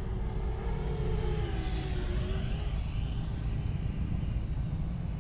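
6-inch FPV quadcopter's brushless motors (T-Motor Velox 2207 2550KV) and Gemfan 6045 propellers whining as the drone flies past, the pitch falling over about two seconds. A steady low rumble runs underneath.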